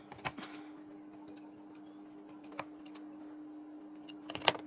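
A few sharp clicks and knocks, the loudest pair near the end, as the stitched fabric is taken out from under a sewing machine's presser foot, over a steady low hum.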